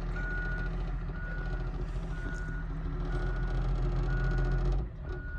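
Large truck reversing: its backup alarm beeps steadily about once a second over the diesel engine running, and the engine's rumble drops off near the end.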